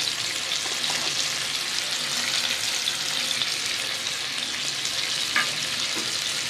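A masala-coated egg sizzling steadily in hot refined oil in a flat non-stick pan, with one small click a little past five seconds in.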